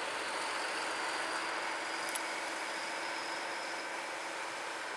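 DB Class 218 diesel-hydraulic locomotive running as it draws its train toward the platform, a steady engine and rail noise. There is a brief click about two seconds in.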